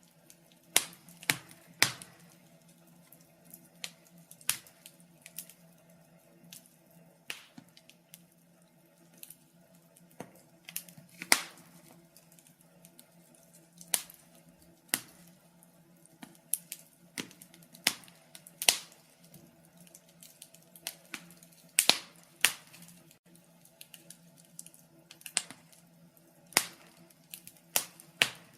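Wood fire crackling: irregular sharp pops and snaps, some loud and many faint, over a faint steady low hum.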